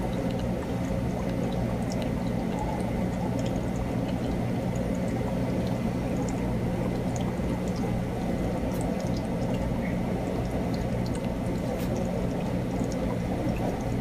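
Steady low rushing background noise with a low hum. Faint, scattered ticks of a mechanical pencil on paper run through it.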